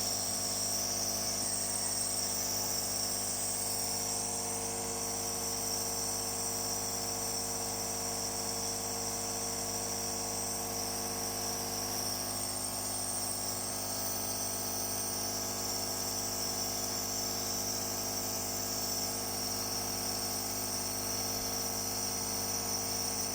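Home nebulizer's compressor running: a steady electric buzz with a high hiss, unchanging throughout.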